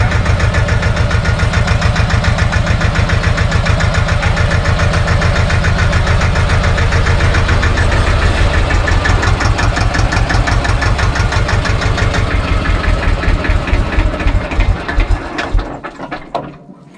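SAME tractor's diesel engine running with a steady, even beat of firing pulses, then switched off about a second before the end and dying away. A few clicks follow.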